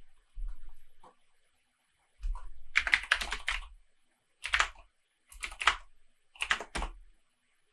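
Typing on a computer keyboard: a quick run of keystrokes a couple of seconds in, then three short clusters of keystrokes about a second apart, with pauses between.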